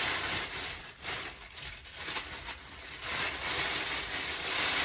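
Packaging rustling and crinkling as a bag is unwrapped and handled, dipping about a second in and growing louder again near the end.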